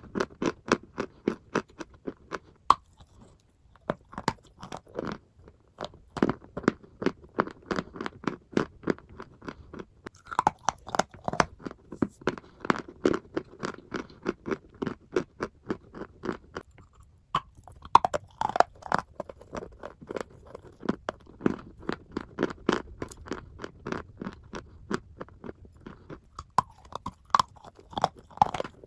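Close-miked crunching and chewing of bites of white chalk: a dense run of sharp crunches in clusters, with short pauses between bites.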